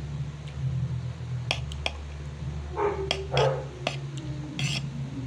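Spoon and fork clinking and scraping against a plate: several light clicks, with a longer scrape about three seconds in, over a steady low hum.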